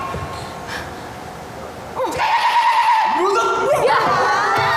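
A group of young actors shouting and cheering together on stage, coming in loud about two seconds in with high, wavering cries after a quieter start.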